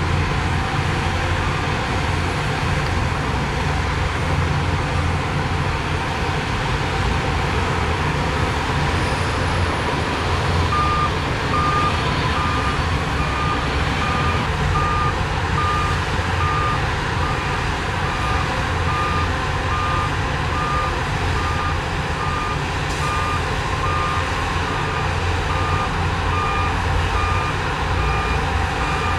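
Heavy earthmoving machinery's diesel engine running steadily under load. About eleven seconds in, a reversing alarm starts beeping at roughly one beep a second and keeps going.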